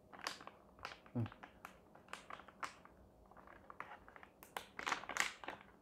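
Plastic pouch crinkling as it is handled and pulled open, a string of sharp crackles and rustles.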